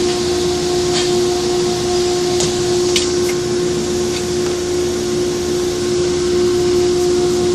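CNC push bending machine running as it bends 25 mm metal pipe: a steady hum with a constant whining tone, and a few faint ticks in the first half.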